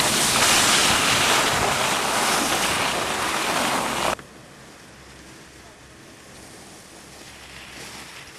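Loud wind noise rushing over the camcorder's microphone while skiing downhill at speed. It cuts off abruptly about four seconds in, leaving a faint outdoor hiss.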